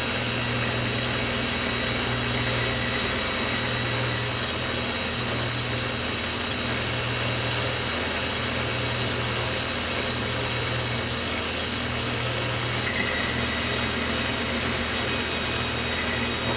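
Metal lathe driven by a converted DC motor, running steadily with a low hum and a thin high whine while the carriage is fed along a turning cut; the owner finds the DC motor short of power.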